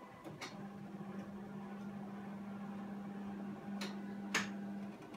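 Konica Minolta bizhub C224e copier booting up just after being switched on, with new firmware loaded: a steady low hum starts about half a second in, with a few sharp clicks, the loudest near the four-second mark.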